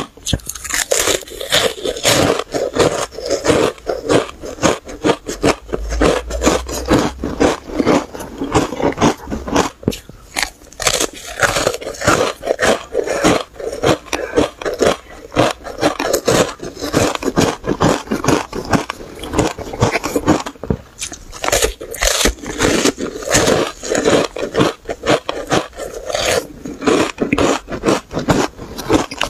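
Powder-coated ice chunks being bitten and chewed close to the microphone: a dense, continuous run of sharp, crackly crunches, several a second.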